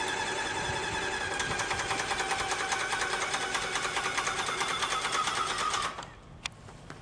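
An engine running: a steady pitched drone with a fast rattle, cutting off suddenly about six seconds in.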